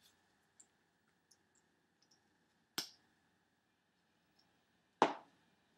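Two sharp plastic clicks about two seconds apart, the second louder, as a mascara tube is handled and opened, with a few faint ticks in between.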